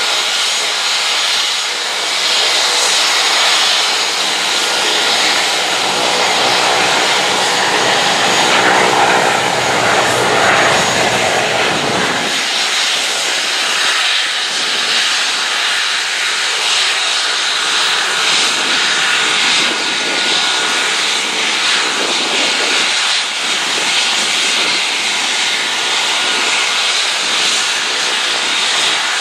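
Airbus H145 air-ambulance helicopter in flight after take-off, its turbines and rotor giving a loud, steady whine and rush as it climbs away overhead. The deepest rumble drops out about twelve seconds in.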